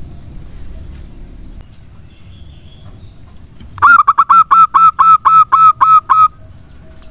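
Zebra dove (perkutut) calling: a fast run of about a dozen loud, evenly pitched cooing notes, starting a little over halfway through and lasting about two and a half seconds.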